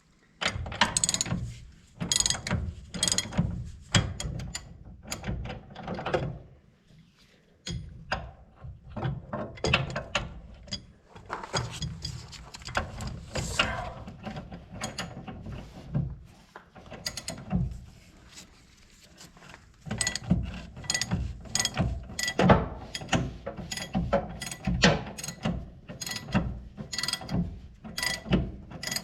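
Hand socket ratchet wrench clicking in repeated bursts of quick strokes as it turns nuts and bolts on a corn planter's wheel assembly, with short pauses between bursts.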